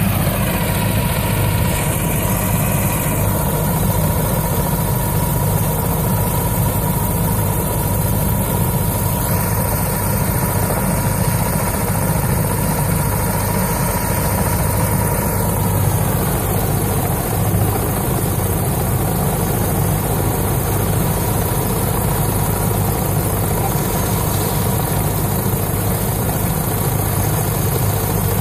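Helicopter running steadily on the ground, a continuous low engine and rotor drone with a steady high whine.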